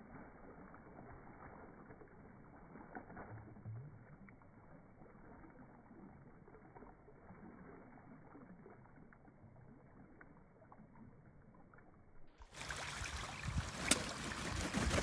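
Muscovy duck bathing in open water, splashing. Faint and muffled for most of it, then about twelve seconds in it turns louder and clearer as the duck beats its wings in the water, with a sharp slap near the end.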